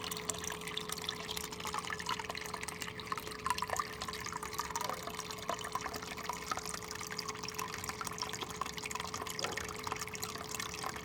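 Water running through a mini gold sluice, trickling and splashing with small drips as it washes black sand off the concentrates. A faint steady hum runs underneath.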